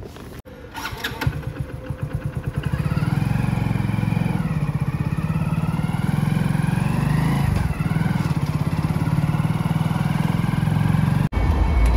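Motorcycle engine picking up speed over the first couple of seconds, then running steadily at riding speed, with a brief dip about eight seconds in. The sound breaks off abruptly just before the end.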